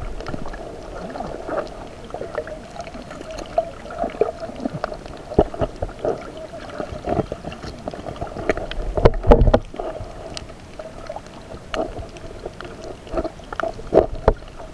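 Muffled underwater sound through an action camera's waterproof housing: water moving against the case over a steady hum, with many short knocks and clicks from handling and a louder cluster of knocks about nine seconds in.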